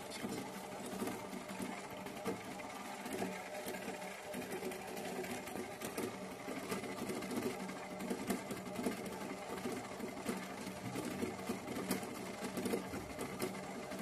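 Mandy Piko toy washing machine running, its small electric motor turning the drum with a steady whirring buzz and quick light rattling clicks.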